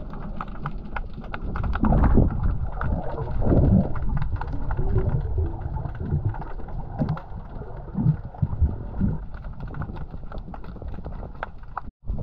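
Muffled underwater noise picked up by a submerged camera: a low rumble and sloshing with many small clicks and crackles of bubbles. It swells louder around two and three and a half seconds in and cuts out for an instant near the end.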